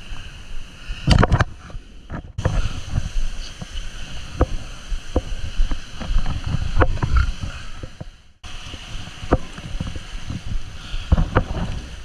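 Rushing water of a small waterfall and stream, with wind buffeting the camera microphone and many sharp knocks from the GoPro being handled and bumped along the rocks. The sound drops out briefly twice where the footage cuts.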